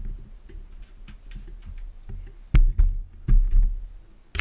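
Handling noises while cleaning motorcycle parts: scattered clicks and knocks, with a cluster of four heavy, dull thumps a little past halfway.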